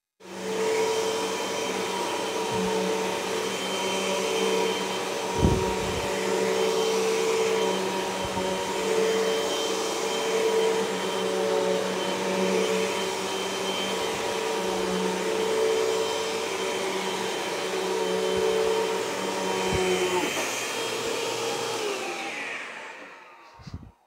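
Bagless vacuum cleaner running steadily, with an occasional knock as it is worked over the floor. About twenty seconds in it is switched off, and the motor winds down with a falling pitch until it stops.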